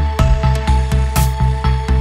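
Electronic background music with a fast, steady beat of about four to five pulses a second over strong bass.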